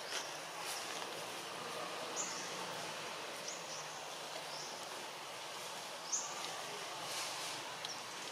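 Outdoor ambience: a steady hiss with short, high chirps about five times, the loudest about six seconds in.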